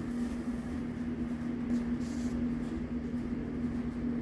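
Steady room hum of a running appliance or ventilation: one constant low tone over a soft even hiss.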